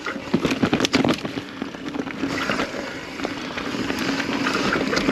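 Kona Process X mountain bike descending a rough trail: tyres on dirt and rock, with the frame and chain rattling and many sharp clacks from impacts. A steady buzz runs through roughly the second half.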